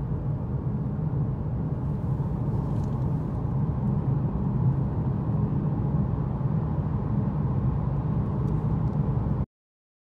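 Car driving on the road, heard from inside the cabin: a steady low rumble of engine and tyre noise that cuts off suddenly near the end.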